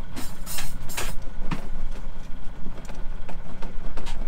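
Yacht's inboard diesel engine idling steadily, with several sharp metallic clicks and knocks from a spanner working on the gear and throttle control lever, most of them in the first second and a half.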